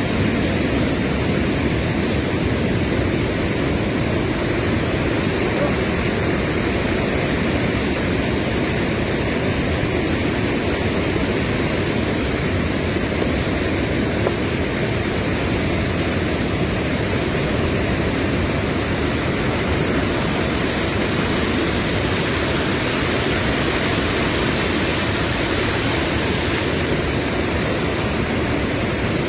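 Steady rushing of a fast, muddy river swollen with monsoon rain, close by.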